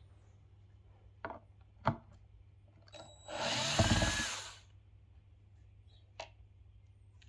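Cordless drill-driver running for a bit over a second, unscrewing a screw from a speaker's woofer, between a few light clicks and knocks of handling.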